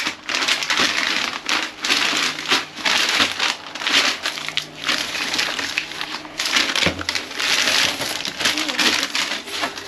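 Plastic trash bags and snack packaging crinkling and rustling as they are rummaged through and handled, with dense, irregular crackles throughout.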